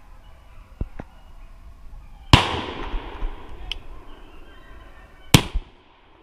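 Two shotgun shots about three seconds apart, fired at a rabbit run by beagles, each followed by a short echo that fades away, longer after the first.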